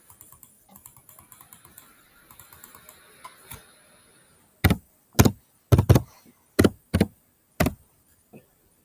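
Computer keyboard typing. Light, quick keystrokes come first, then about seven loud, separate key strikes roughly half a second apart as a word is typed.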